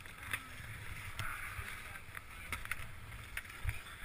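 A steady low rumble with scattered clicks and knocks from ski poles and gear being handled at the vehicle's open door.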